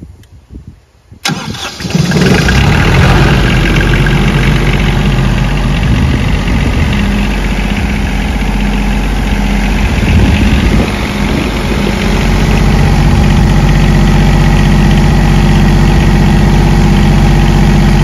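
PRAMAC GSW10 generator's Yanmar diesel engine starting about a second in and settling into a steady run at about 1,870 rpm. It cranks and fires now that the faulty cranking relay, which had kept the starter from engaging, has been replaced.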